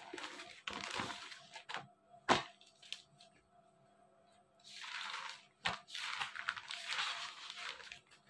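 Clear plastic packaging of an unstitched suit rustling and crinkling as the fabric is pulled out of it, in several stretches, with a few sharp clicks, the loudest about two seconds in.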